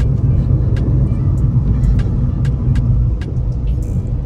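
Steady low rumble of a Skoda Fabia's three-cylinder 1.2 engine and tyres, heard from inside the cabin while driving, with scattered light ticks throughout.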